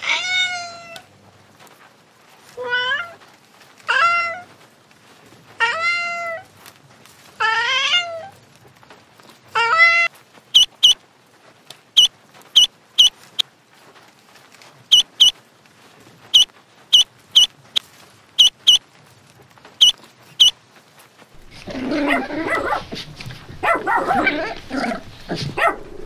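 Kittens meowing, six calls about two seconds apart. Then ducklings peeping in short, high chirps, often two or three close together. In the last few seconds, puppies growl in rough play.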